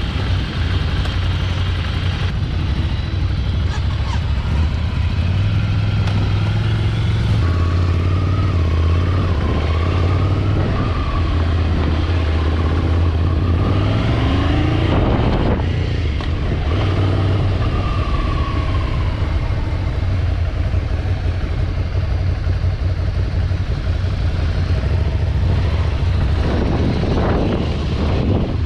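Scrambler Ducati motorcycle's L-twin engine running steadily while under way, its pitch rising and falling a little with the throttle.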